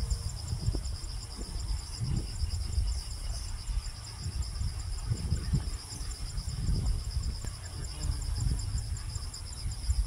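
Background insects chirping: a steady, high, fast-pulsing trill that carries on without a break, over an irregular low rumble.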